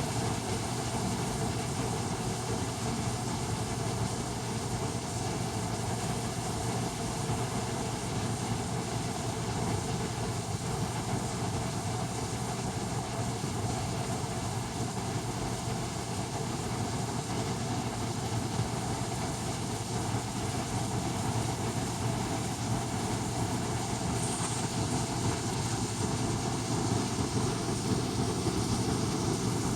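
N-scale model train running on the layout track: a steady running noise with a constant low hum.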